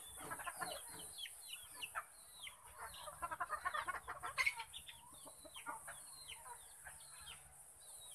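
Backyard chickens clucking, with short high notes falling in pitch repeated throughout and a denser run of clucks about three to four seconds in.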